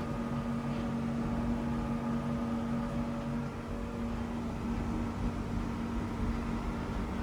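John Deere 750C LGP crawler dozer's diesel engine running with a steady hum while the machine creeps along at a crawl.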